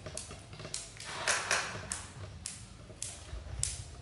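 Hard plastic clicking and tapping from a child's toy ride-on motorbike as its handlebar is handled: a string of sharp, irregularly spaced clicks, loudest around the middle.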